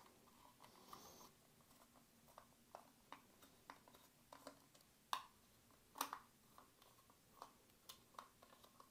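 Faint, scattered clicks and ticks from a precision Torx screwdriver loosening small Torx screws in a smart speaker's plastic housing; the loudest clicks come about five and six seconds in.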